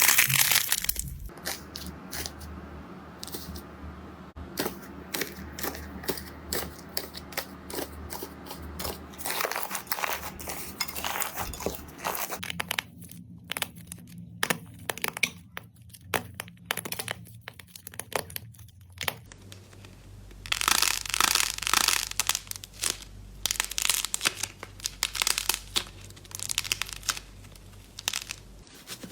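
Slime being pressed and worked by hand close to the microphone: an uneven run of sticky crackles, pops and clicks, growing denser and louder in the last third.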